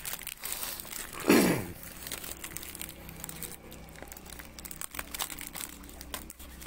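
Plastic parcel wrapping crinkling and rustling as it is handled. About a second in, one short, loud sound falls steeply in pitch and stands out above the crinkling.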